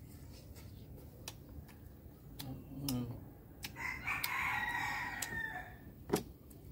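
A rooster crows once, a long call starting about four seconds in that sags in pitch at its end. Scattered small clicks and taps from food being handled at the table, with one sharp knock near the end.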